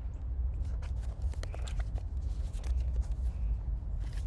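Wind rumbling on the microphone, with scattered small clicks and rustles of handling.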